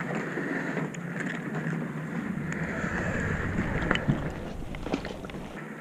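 Wind rumbling on a body-worn microphone, the low rumble cutting off suddenly near the end, with rustling and a few light clicks as a caught fish is handled.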